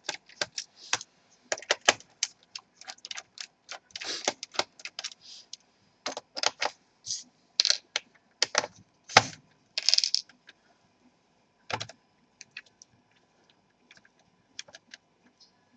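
A small screwdriver backing screws out of a laptop's plastic bottom case: irregular light clicks, taps and short scratchy scrapes of the metal tip on screw heads and plastic.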